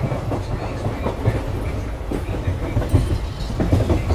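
Coaches of an Indian Railways express train running on the track, heard from the open coach door: a steady low rumble of the wheels with irregular sharp clacks as they pass over the rails.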